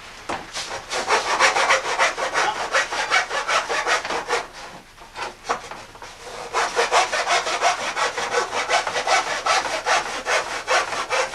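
Hand backsaw cutting through a wooden board in quick back-and-forth strokes, several a second, its blade greased on both sides to ease the cut. The sawing stops for about two seconds near the middle, then starts again.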